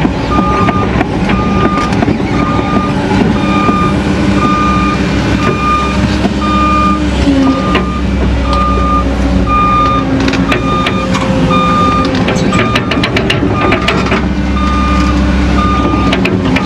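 Excavator's travel alarm beeping steadily, evenly spaced single-tone beeps over the diesel engine running, with a spell of clattering rock and dirt partway through.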